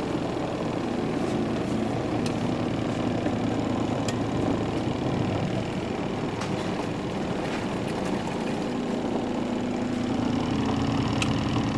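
Twin-tub washing machine's wash-tub motor running steadily, agitating a pair of work pants in water, with a hum and a few faint ticks.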